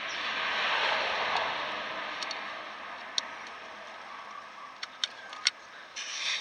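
Rustling and scraping of Volkswagen Golf Mk3 rear drum brake shoes being handled while a return spring is fitted by hand. This is followed by several sharp metallic clicks of the spring and shoe parts knocking together.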